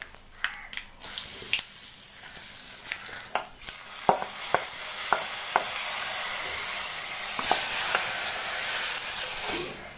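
Hot coconut-oil tempering of mustard seeds, dried red chillies and curry leaves poured into a pot of buttermilk curry, sizzling with a steady hiss from about a second in. A few light knocks come as the pan is scraped out with a wooden spatula. The sizzle grows louder near the end as it is stirred in, then cuts off.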